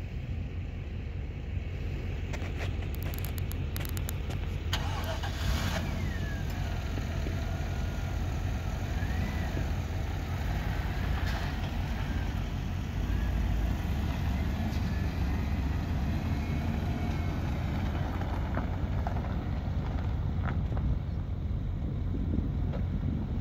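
A 2001 Chevrolet K2500 pickup's engine running steadily, a continuous low rumble, with a few clicks early on.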